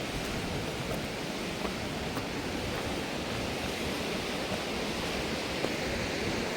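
Steady rushing outdoor noise, even across all pitches with no distinct events.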